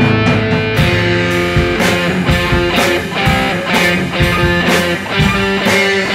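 Improvised garage rock: a band playing, led by electric guitar, with drum hits at a steady beat.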